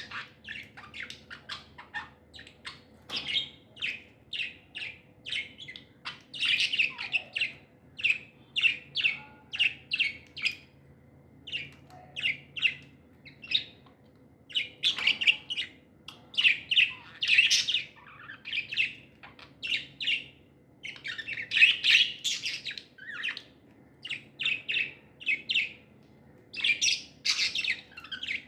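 Pet budgerigars chirping and chattering: a run of short high chirps in quick succession, several a second, with louder, denser bursts now and then.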